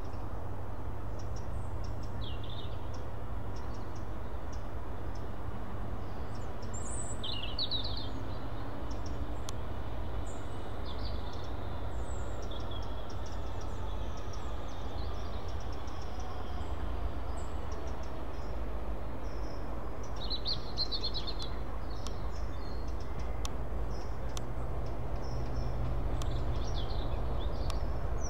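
Low steady rumble of a Class 69 diesel locomotive approaching slowly with its coaches, growing louder over the last few seconds. Birds chirp briefly now and then over it.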